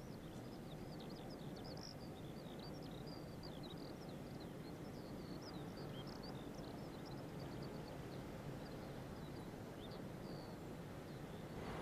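Faint outdoor ambience: small birds chirping in many quick, high notes over a steady low background rumble, the chirping stopping shortly before the end.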